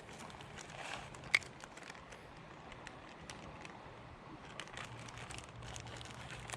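Faint scattered crackling and rustling, with one sharp click about a second in.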